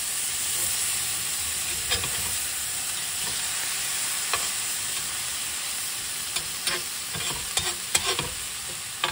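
Burger patties and sliced onions sizzling steadily on a hot cast iron griddle. A metal spatula scrapes and clicks against the griddle now and then, more often near the end.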